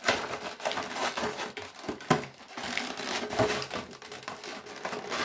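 Clear plastic packaging of a boxed action figure, its blister tray and wrapping, crinkling and clicking irregularly as hands handle it during unpacking.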